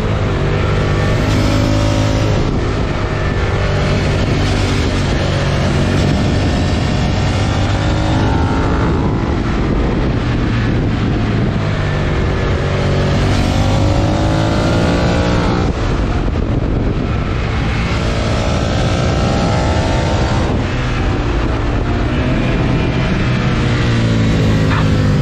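Suzuki SV650's 90° V-twin, breathing through a Yoshimura R77 exhaust, running hard on a downhill ride. The engine pitch falls and climbs several times as the rider shifts and rolls on and off the throttle, with the engine braking through a fitted slipper clutch.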